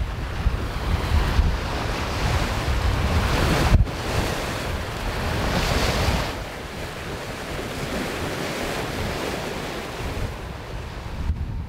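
Wind buffeting the microphone over the rush of waves along a sailing yacht's hull in choppy seas. Heavy wind rumble fills the first few seconds, a surge of rushing water comes about six seconds in, and a steadier, lighter wash follows.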